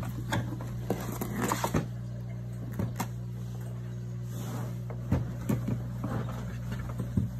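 Handling noise as an Autel MaxiSys Ultra scan-tool tablet is lifted out of its moulded plastic carry case: light knocks, clicks and rustles, clustered about a second in and again from about five seconds, over a steady low hum.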